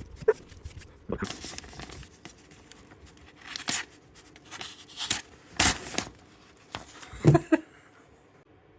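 Knife blade being drawn across a sharpener in separate strokes, each a short scraping swish, several times with pauses between them.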